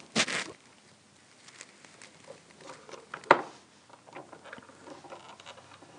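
Small clicks and rustles of hands handling rubber loom bands and a plastic Rainbow Loom, with one sharper click about three seconds in.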